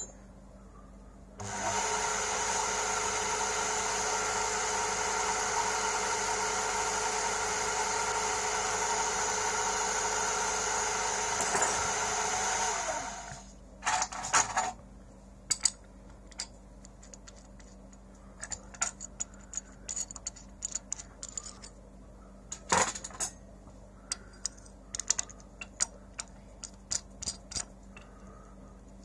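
Large metal lathe running steadily for about eleven seconds, a steady machine hum with several held tones, then spinning down. After that, a scatter of small sharp metallic clicks and taps.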